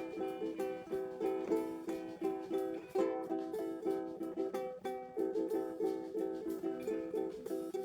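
Acoustic guitar strummed in a quick, steady rhythm of repeated chords, with no singing.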